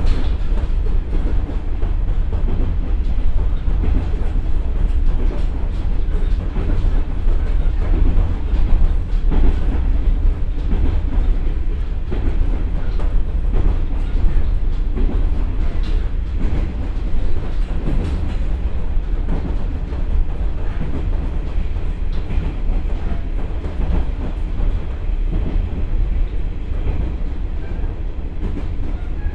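Interior running sound of a JR West KiHa 47 diesel railcar with a Komatsu engine and KTF3335A transmission, at around 60 km/h. A steady engine drone and rolling rail noise fill the cabin, with a few wheel clacks over rail joints.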